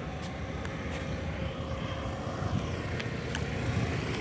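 Steady low rumble of outdoor background noise, with a few faint high ticks.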